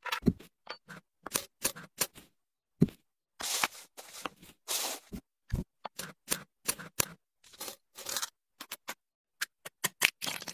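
Close-up handling sounds: a string of short, crisp scrapes, clicks and crackles as hands open a pull-tab tin and cut and handle gold-coloured objects, with brief silent gaps between them.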